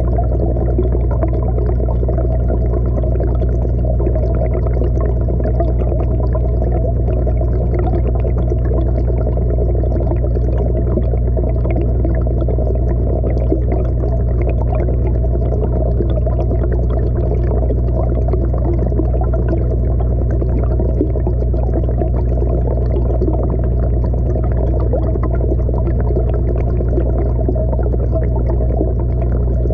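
Muffled underwater sound picked up by a submerged action camera in a fish pond: a steady low rumble and hum of water, with nothing sharp or high in it.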